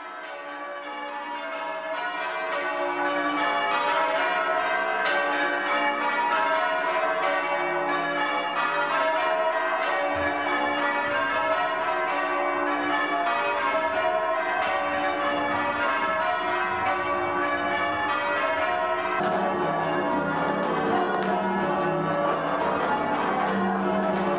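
A ring of eight church bells, newly restored with new headstocks and sealed bearings, rung full-circle in change ringing on their first test ring: a steady stream of overlapping bell strokes that fades in over the first few seconds.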